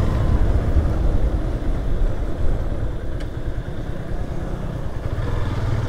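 Motorcycle engine running while riding, mixed with steady wind rumble on the camera's microphone.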